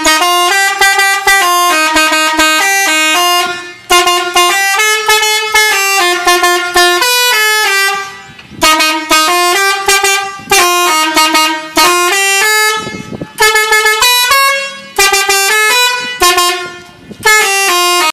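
Bus telolet horn, a multi-tone musical air horn worked from a keypad at the driver's seat, playing a melody note by note. The tune comes in phrases of a few seconds with short breaks between them.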